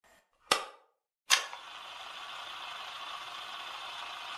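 A single sharp crack about half a second in, then rain on wet pavement starts abruptly a second later and keeps on as an even hiss.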